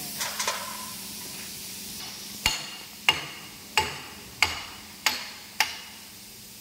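Six sharp hammer blows on steel, about two every second, each with a short metallic ring.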